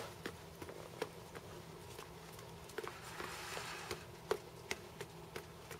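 A toddler's footsteps on stone patio pavers in oversized adult shoes: scattered, irregular light taps and scuffs.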